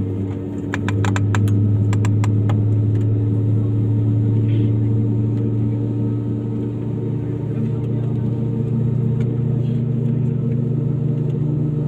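Airliner cabin drone from the running engines, heard from inside the cabin: a steady low hum whose lowest note steps up in pitch about seven seconds in. A quick run of light clicks comes about a second in.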